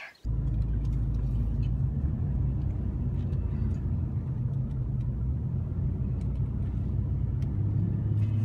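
Car driving along a paved road, heard from inside: a steady low engine and road rumble.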